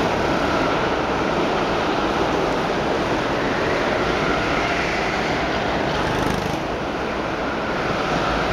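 Go-karts running around an indoor track: a steady engine drone echoing through the hall, with a faint whine that rises and falls as the karts speed up and slow.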